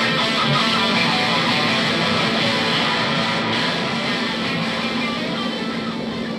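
Background music led by electric guitar, getting slightly quieter toward the end.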